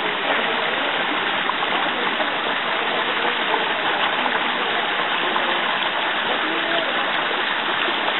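Shallow rocky creek running over stones: a steady, even noise of flowing water.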